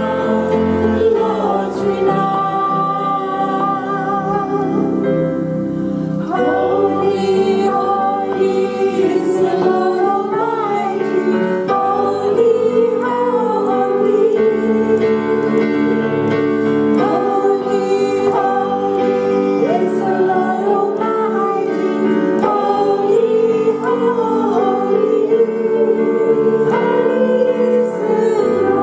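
Worship song: women singing into microphones over electronic keyboard accompaniment, with the sung lines moving over steady chords.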